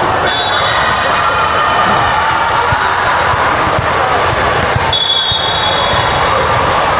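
Volleyball court sounds: a volleyball thudding on hands and the floor and sneakers squeaking on the court, over steady crowd chatter in a hall. There are two short high squeaks, one within the first second and one about five seconds in.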